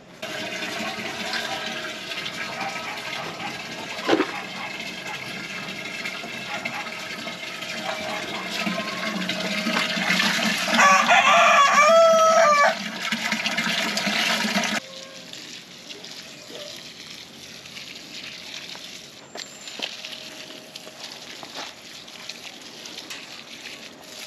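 A stream of rainwater from a hose splashes into a chicken waterer pan. A rooster crows once, about eleven seconds in, for about two seconds. About fifteen seconds in, the sound drops to a much quieter run of hose water soaking into the mulch of a potted blueberry plant.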